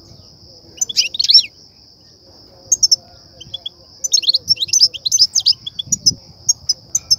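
European goldfinch twittering: quick bursts of bright chirps, loudest in a burst about a second in and in a dense run from about four seconds in, then scattered single tweets. This is the excited call that trappers play to stir goldfinches and draw them to nets. A steady high-pitched hiss sits underneath.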